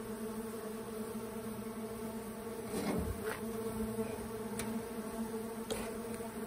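Mandaçaia stingless bees (Melipona quadrifasciata) buzzing steadily in flight at the hive box, with forager bees coming out of the entrance. A few faint clicks come around the middle.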